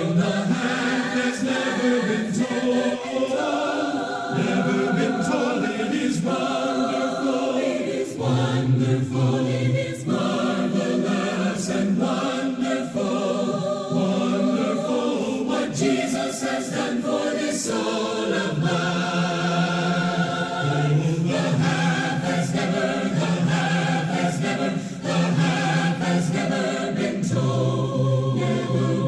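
A choir singing a slow piece in held, changing chords.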